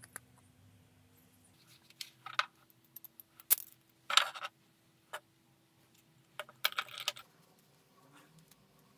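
Scattered clicks and light knocks of small parts being handled on a wooden workbench: a 3D-printed plastic block and aluminium square tube being fitted together and set down. The knocks come in two clusters, one about two to four and a half seconds in and another around seven seconds.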